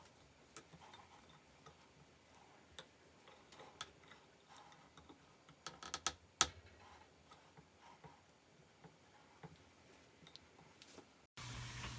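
Faint scattered clicks and taps, with a handful of louder sharp clicks around the middle. Near the end the sound cuts abruptly to a low, steady hum.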